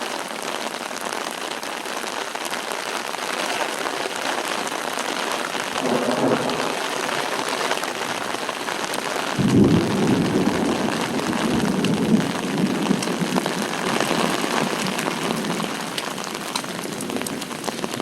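Heavy rain falling steadily on an umbrella overhead. A low roll of thunder starts suddenly about halfway through and rumbles on for several seconds after a lightning flash.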